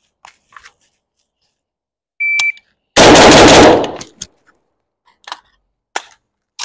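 AK-pattern rifle fired in a very loud, rapid string of shots lasting under a second, about three seconds in. A short beep comes just before it, and a few fainter single clicks follow.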